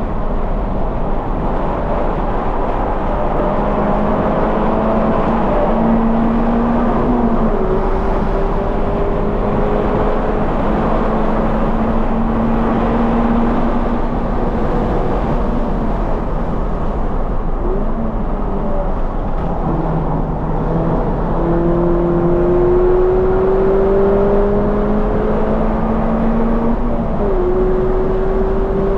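2020 Toyota 86's 2.0-litre flat-four through a Corsa cat-back exhaust, driven hard on track: the engine note climbs slowly through long pulls and changes pitch abruptly at gear shifts about three times, over steady wind and tyre noise.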